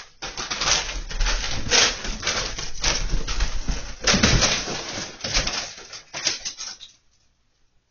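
A panicking cat with a bag stuck on its head thrashing and running: the bag rustles and flaps loudly amid thumps of the cat leaping and landing. It all stops abruptly about seven seconds in.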